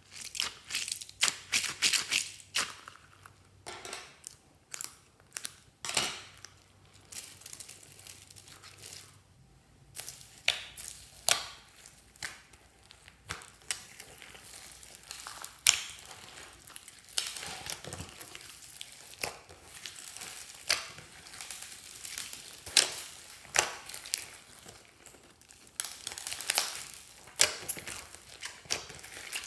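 Slime being squeezed and mixed by hand with foam beads and other add-ins: irregular crunching, crackling and squelching pops, thickest in the first few seconds.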